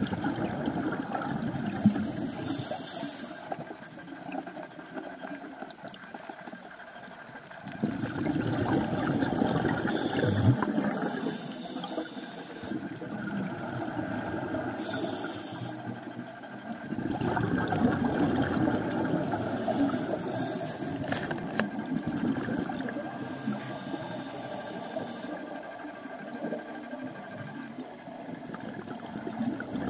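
Scuba diver breathing through a regulator underwater: exhaled air bubbles out in long surges about every eight or nine seconds, with short hisses of air through the regulator.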